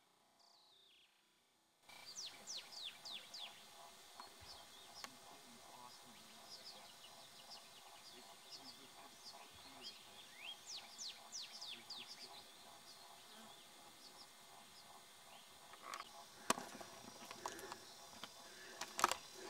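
Faint birdsong: many short, steeply falling chirps over a steady outdoor hiss, starting about two seconds in, with a few sharp clicks near the end.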